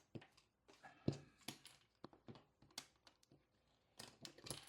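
Faint, irregular small clicks and taps of plastic LEGO pieces being handled and pressed together.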